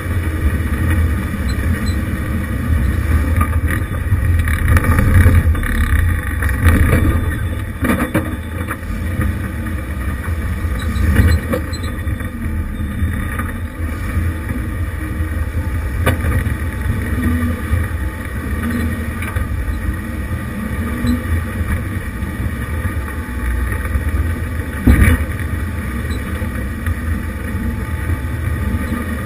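1988 Jeep Wrangler YJ crawling slowly over a rocky trail, its engine a steady low rumble, with occasional knocks as it goes over the rocks; the loudest knock comes near the end.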